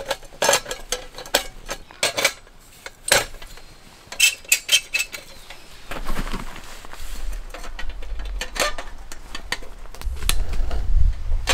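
Metal clinks and rattles, some with a short ring, as the chrome parts of a pressure kerosene lantern (hood, chimney, glass globe) are handled while it is readied for alcohol preheating. The clinks come several to a second in the first half, with one more later on. A low rumble builds in the second half and is loudest near the end.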